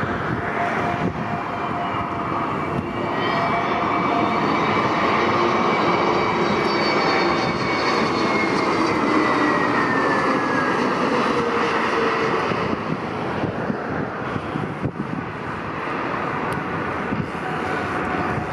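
Passenger aircraft passing close by with its engines running: a steady roar with whining tones that fall in pitch as it goes past. It is loudest in the middle and eases off near the end.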